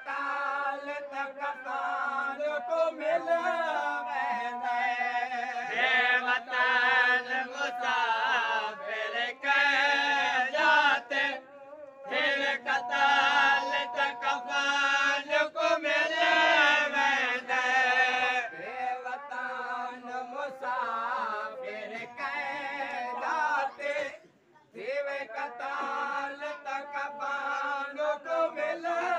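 Men's voices chanting a noha, a Shia lament, sung without instruments. The chant breaks off briefly about twelve seconds in and again near twenty-four seconds.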